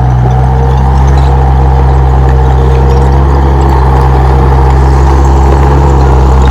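Komatsu D31P bulldozer's diesel engine running steadily at an unchanging engine speed, a loud, even drone.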